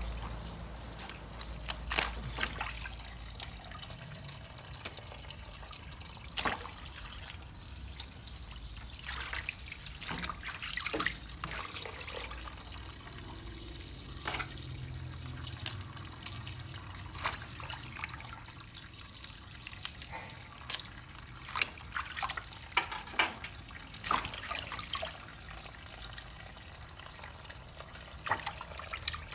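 Tap water running into a stainless steel sink and onto leafy vegetables, with frequent short splashes and knocks as hands rub and turn the vegetables under the stream.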